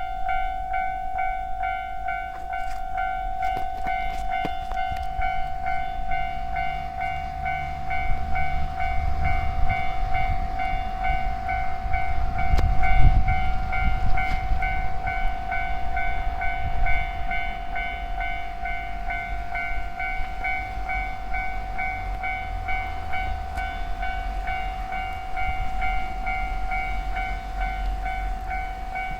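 Japanese railway level-crossing warning bell ringing continuously in quick even dings while a train passes through the crossing, its low rumble loudest about 13 seconds in.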